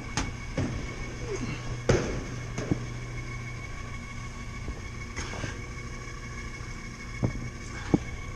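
HVAC unit running with a steady low hum and a steady high whine, broken by several sharp knocks and clicks.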